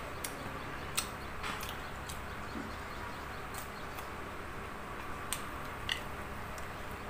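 A person eating crispy fried food: scattered short clicks and crunches, about nine in all and irregularly spaced, over a steady background hiss.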